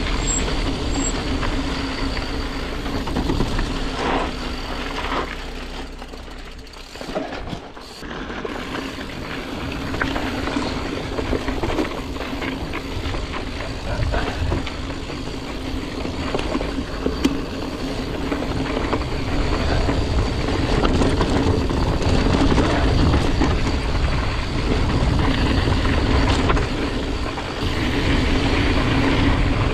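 Canyon Grand Canyon hardtail mountain bike rolling fast along a dirt forest trail: steady tyre rumble over dirt and stones with wind noise on the handlebar camera's microphone, easing off for a moment about seven seconds in.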